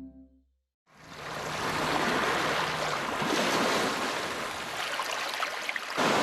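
Steady rushing water, an even wash of noise that fades in about a second in and holds, after the last of a music bed fades out.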